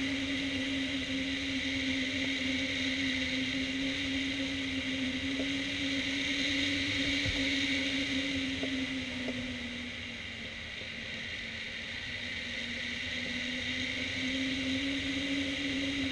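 Airflow rushing over a hang glider and its wing-mounted camera in flight, with a steady low hum riding on the wind. About ten seconds in, the hum and the rush drop a little in pitch and loudness, then rise back.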